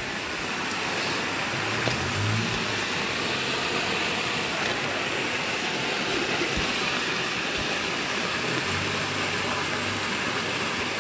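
Steady rush of fast, muddy river water flowing under a small road bridge. A low engine hum from a vehicle comes in briefly about two seconds in and again near the end.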